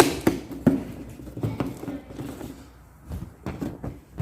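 Inflated latex balloons being handled and fitted together, giving irregular knocks and short rubbery squeaks.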